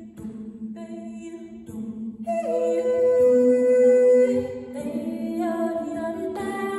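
Four women's voices singing a Norwegian springdans folk tune a cappella in harmony: a steady low drone runs under moving upper parts. One voice holds a loud, long note in the middle.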